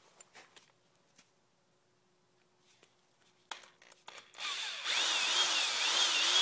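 Electric drill with a track-cutter bit boring a stud hole through a rubber snowmobile track. It starts about four seconds in after a few faint clicks, and the motor's whine wavers up and down as the bit cuts.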